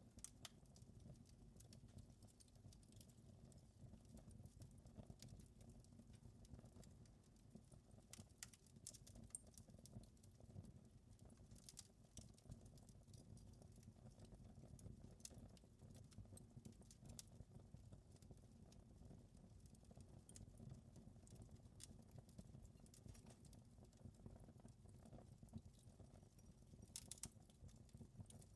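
Wood fire in a fireplace crackling quietly: irregular pops and snaps over a low steady rumble.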